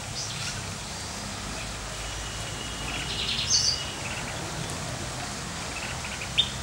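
Small birds chirping outdoors: a short high call just after the start and a quick run of high chirps about three seconds in, over a steady low background hum.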